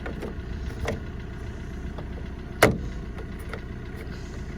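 A few sharp clicks and knocks of a van's rear door lock clip and mechanism being fitted back by hand, the loudest a single snap a little over halfway through, as the clip goes into place. A steady low mechanical rumble runs underneath.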